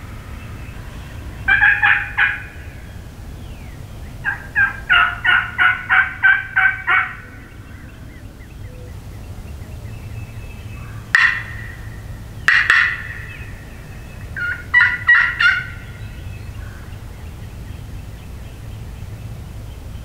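Turkey call worked by a hunter to imitate a hen turkey: a short group of yelps, then a run of about nine evenly spaced yelps, and later a few sharp single notes and a quick cluster of notes near the end.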